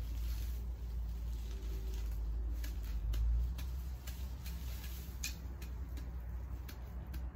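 Grass and weed stalks rustling and snapping as they are pulled up by gloved hands: a run of short, sharp ticks, most of them from about two and a half seconds in, over a steady low rumble.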